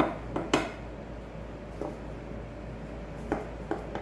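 A metal flour sieve being tapped and shaken over a bowl: about six short knocks at uneven intervals, three close together near the start, one near the middle and two near the end.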